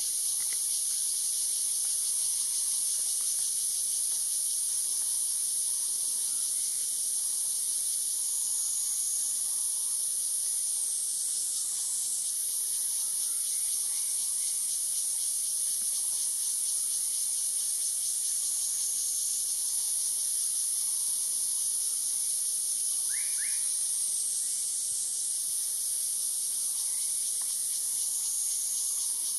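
Dense insect chorus, a steady high-pitched drone, with a couple of faint short chirps about three-quarters of the way through.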